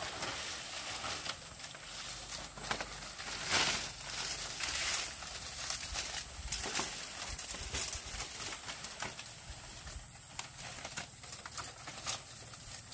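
Dry palm-leaf thatch rustling and crackling in irregular bursts as it is pulled off a roof frame and handled, with scattered sharp snaps; the loudest rustle comes about four seconds in.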